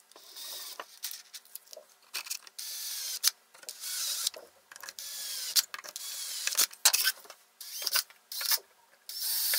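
Bosch 18V cordless drill running in a series of short bursts, its motor whine rising and falling in pitch, as it drills holes through a plastic bucket lid.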